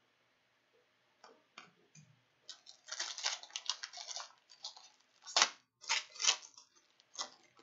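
Hockey card pack's shiny wrapper being torn open and crinkled by hand, a dense crackle about three seconds in, then several sharp crinkles and clicks as the cards are pulled out.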